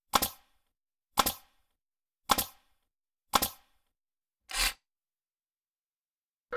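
Title-animation sound effects: four sharp shot-like bangs about a second apart, each fading quickly. About four and a half seconds in comes a fifth, duller hit with a low thump.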